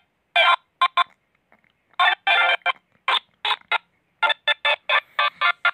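A high-pitched, voice-like sound chopped into short bursts, about a dozen of them, each cut off sharply into silence.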